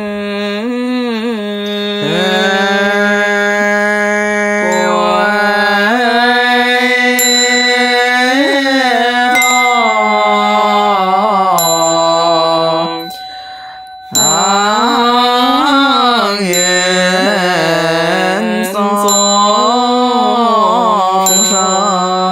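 Chinese Mahayana Buddhist liturgical chanting, sung in long, slowly bending melodic lines over a steady held low tone, with a short break about thirteen seconds in. A small high chime rings briefly several times in the second half.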